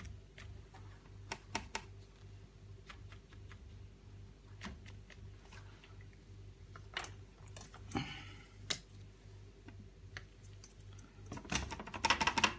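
Paintbrush dabbing and tapping acrylic paint onto a stretched canvas: scattered light clicks, a brief rustle about eight seconds in, and a quicker cluster of taps near the end, over a faint low hum.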